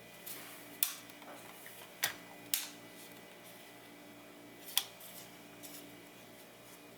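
Sharp plastic clicks and taps from a Nikon Coolpix L840 compact camera being handled and its parts pressed together, about four separate clicks.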